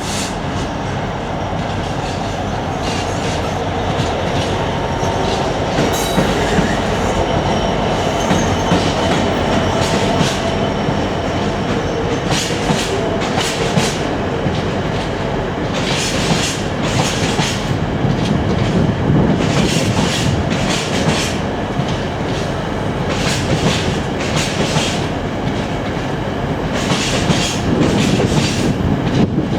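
Coal hopper train rolling past behind a Class 66 diesel. Its wheels clatter in repeated clicks over rail joints above a steady rumble, with some wheel squeal.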